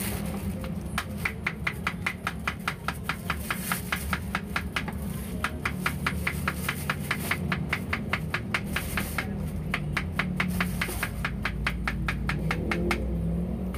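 Large kitchen knife rapidly chopping spring onions on a cutting board: fast, even strokes at about six a second, pausing briefly twice before stopping near the end.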